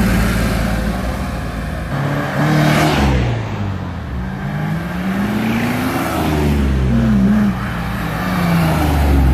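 Car engines and exhausts revving and passing close by, the pitch rising and falling several times. About three seconds in, one car passes loudest, and a long rising rev follows from about four seconds.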